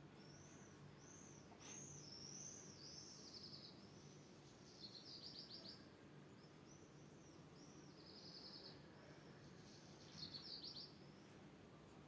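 A songbird singing faintly: a string of high, arched whistled notes, broken by short rapid trills about five, eight and ten seconds in.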